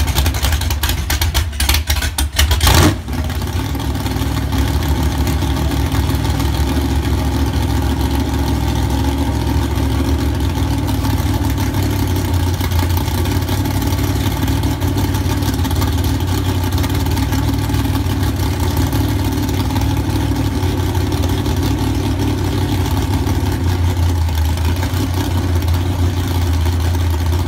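A 383 cubic-inch Chevy V8 (bored .030 over, 11:1 compression, Demon 750 CFM carburettor) running on a test stand through open headers. A cluster of sharp cracks comes in the first three seconds, the loudest a little under three seconds in, then the engine runs on steadily.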